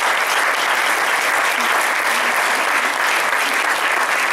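An audience applauding: many hands clapping together in a steady, dense patter.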